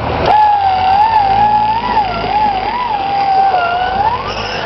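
Electric winch motor whining under load as it pulls a Jeep out of a muddy ditch, the pitch wavering as the load changes and rising as it lets up near the end, over a low engine rumble.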